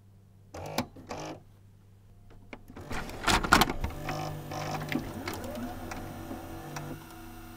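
Video cassette recorder mechanism at work: a low hum, two short clunks about a second in, then louder clunking and clatter over a motor whirring as the tape is drawn in and starts to run.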